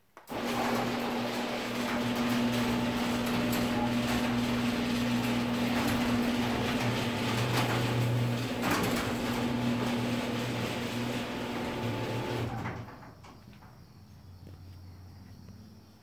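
Genie Pro screw-drive garage door opener (CM8600-XL/M) starting up and running steadily with a motor hum as it raises a 16x7 uninsulated sectional door, then stopping after about twelve and a half seconds when the door reaches fully open.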